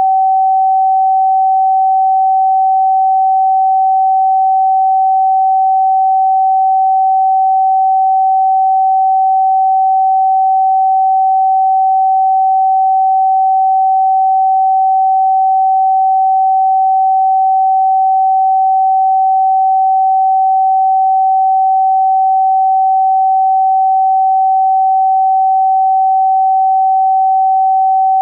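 A pure sine tone of about 764 Hz, the note G (Sol) in a scale tuned to A = 432 Hz, held perfectly steady at one pitch and level.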